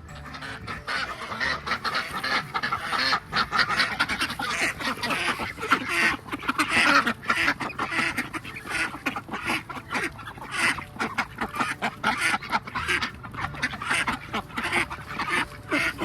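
A flock of farmyard fowl calling over one another: a dense, continuous chatter of many short calls in quick succession.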